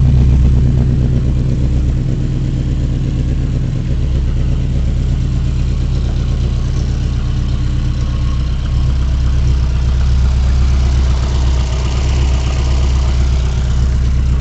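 Subaru boxer engine idling steadily through an aftermarket exhaust with a Stinger header, a Kalina Sport resonator and a Pro Sport muffler, giving a deep, even exhaust note.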